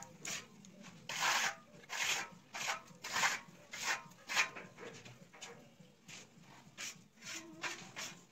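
Masking tape being peeled off a freshly sprayed travertine decorative-plaster wall in short, irregular ripping pulls, about one or two a second, with the rasp of the tape dragging over the rough plaster.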